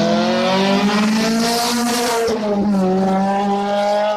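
Historic race car's engine running hard at high revs, its pitch climbing, dipping briefly at a gear change a little over two seconds in, then climbing again.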